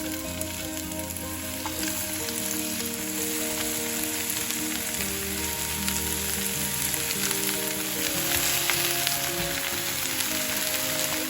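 Food frying in a pan: a steady sizzle with many small pops. Soft held music notes sit underneath.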